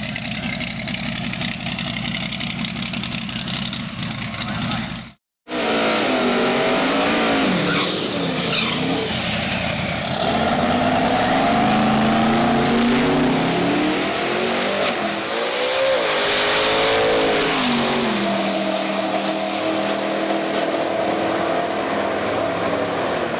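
Twin-turbo big-block Chevy V8 in a 1930 Plymouth drag car, running steadily at first. After a sudden break about five seconds in, it revs up and down several times, with steadier higher-speed stretches in between.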